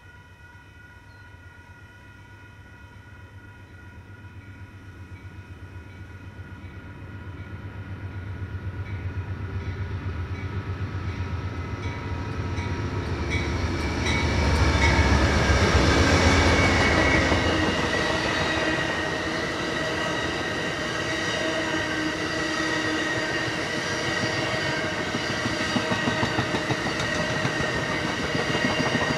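Amtrak passenger train with two diesel locomotives approaching and passing: a deep engine rumble that grows, is loudest about halfway through as the locomotives go by, then gives way to the rolling of the double-deck cars with high wheel squeal. Steady high tones sound through the first half.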